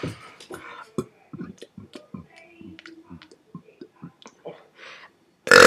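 Soft, scattered clicks and small mouth noises, then a loud burp starts near the end.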